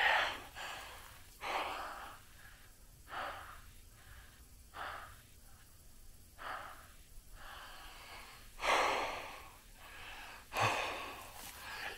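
A man breathing close to the microphone, about seven audible breaths spaced one and a half to two seconds apart.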